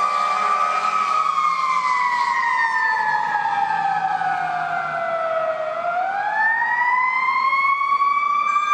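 Fire truck siren wailing as the apparatus responds to a call: the pitch slides slowly down for about five seconds, then climbs back up over the last few seconds.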